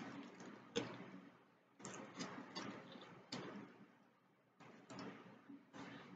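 Faint, intermittent eating sounds: short clicks and rustles about once a second, from handling takeout food and chewing.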